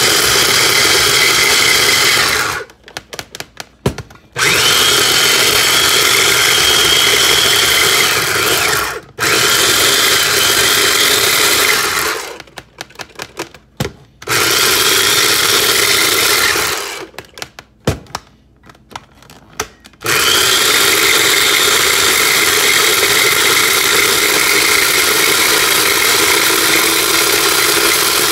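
Small electric food processor running as it chops mushrooms and a clove of garlic into a paste. It runs in long bursts with three short stops, about two and a half, twelve and seventeen seconds in, then runs without a break for the last eight seconds.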